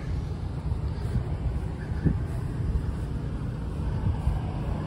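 Uneven low rumble of wind buffeting the microphone outdoors.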